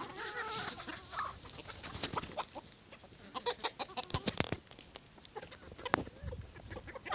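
A flock of free-range hens clucking as they feed, with short calls in the first second, and short sharp taps scattered through, thickest in the middle.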